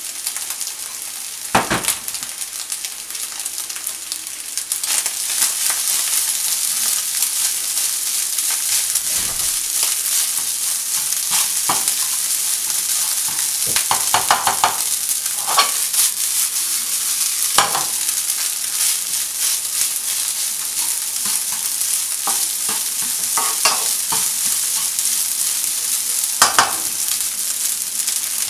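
Rice and scrambled egg sizzling in a hot nonstick frying pan while a slotted spatula stirs and turns it, with short scrapes and knocks of the spatula against the pan. The sizzle gets a little louder about five seconds in.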